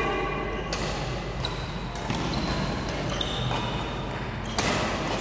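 Badminton rally: several sharp cracks of rackets striking the shuttlecock, the loudest near the end, with short high squeaks of shoes on the court floor between hits.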